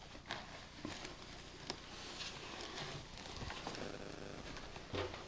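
Footsteps crunching and scuffing over plaster and wood debris on a floor, a string of irregular small clicks and crackles, with a somewhat louder knock near the end.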